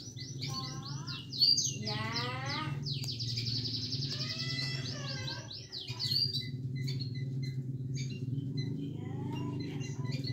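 Small caged songbirds calling: rapid high chirps and trills with runs of quick falling notes, over a steady low hum.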